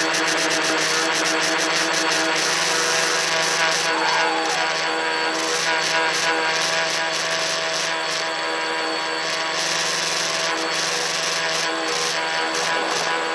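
Electric motors and propellers of a tricopter running steadily, picked up on board by the phone it carries: a steady multi-toned motor buzz over a rushing hiss.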